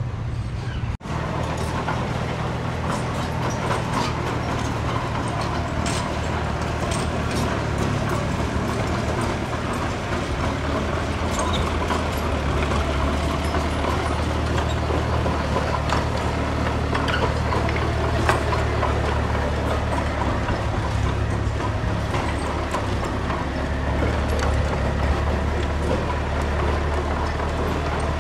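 Diesel engine of heavy earthmoving equipment running steadily at a low, even pitch, with scattered clicks and knocks over it.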